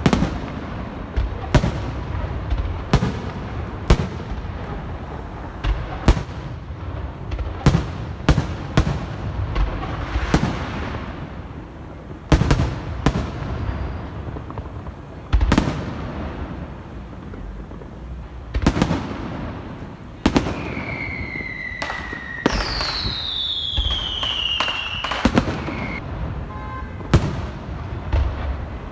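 Aerial fireworks display going off: a long irregular run of sharp bangs over a continuous low rumble. About two-thirds of the way through, a few whistles glide down in pitch between the bangs.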